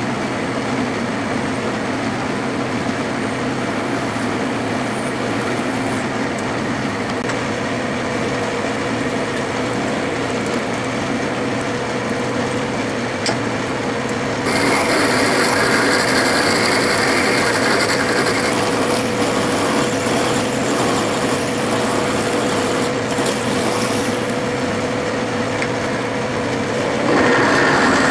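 Metal lathe running with a steady hum while a tailstock drill cuts into a metal block spinning in a four-jaw chuck: center drilling first, then a large twist drill. The sound steps up louder and brighter about halfway through and again near the end.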